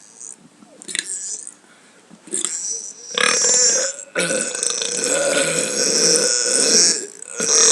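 A man burping loudly: a burp about three seconds in, then a long, drawn-out burp lasting nearly three seconds, and a short one near the end.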